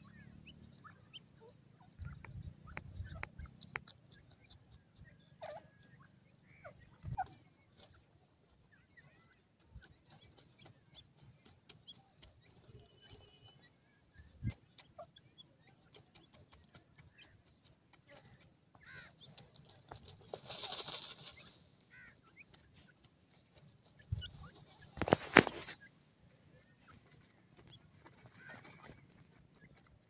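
Grey francolin hen and chicks giving scattered soft peeps and chirps while dust-bathing in dry soil. There are a few low thumps, a rustling burst about twenty seconds in and a louder one about twenty-five seconds in.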